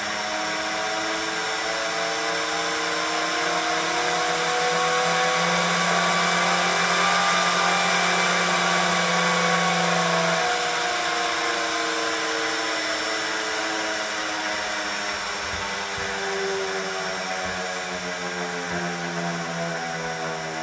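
Three-phase electric motor from an aircraft, driven by a variable frequency drive and spinning fast with no belt or load. Its whine rises in pitch for about the first eight seconds, then falls as it slows, over a steady lower hum and the rush of air it moves.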